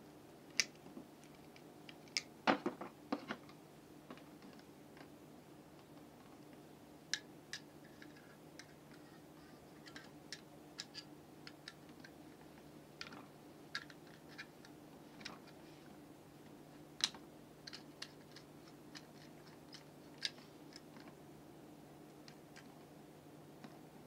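Scattered clicks and taps of hand tools and a plastic wall switch being handled during wiring: pliers on wire and the switch plate being turned and set down. A louder cluster of clicks comes about two and a half seconds in, over a faint steady hum.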